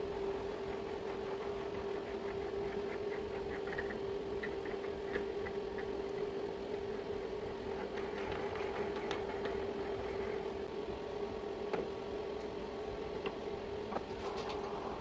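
Steady machine hum from a lathe standing with its spindle stopped, with light metallic clicks and taps as steel parts are handled and set between the centres.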